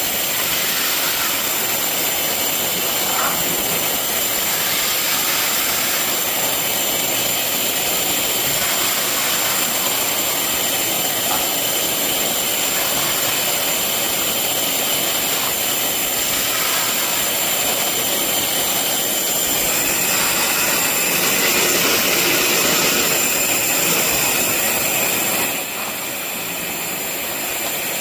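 SD400 TC80A sludge cleaner, an industrial coolant vacuum, running steadily with a high-pitched whine while vacuuming water off the floor through a wide floor nozzle. Its level dips briefly near the end.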